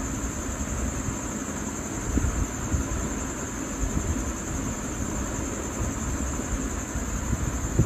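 Steady background noise: a low rumble and hiss with a constant high-pitched whine.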